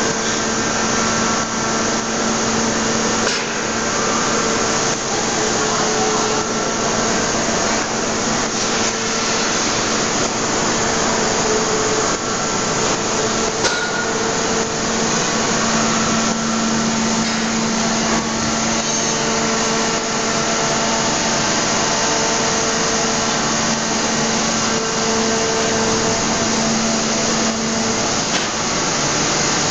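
Steady, loud industrial noise of an aluminium wheel forging hydraulic press line: a dense hiss with a low hum that comes and goes several times.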